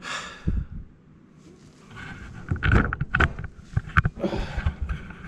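Handling noise from a car wiring harness being laid out: rustling of the wire bundles with scattered clicks and knocks, growing busier about two seconds in.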